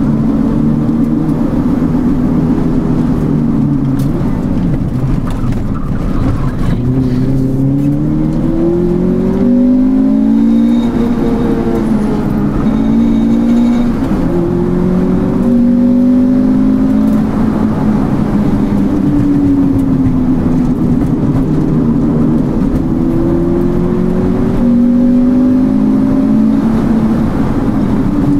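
Honda Integra's four-cylinder VTEC engine and exhaust under hard driving, heard from inside the car. The revs climb and drop over and over as it accelerates out of one bend and eases or shifts for the next.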